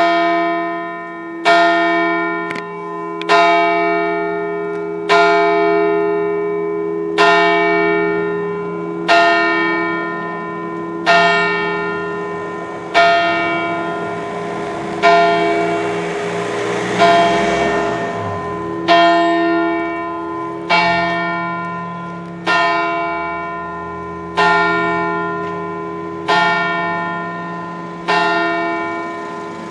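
The larger of the church's two bells, the tenor, tolling steadily: one stroke about every two seconds, each ringing on and fading into a deep hum before the next.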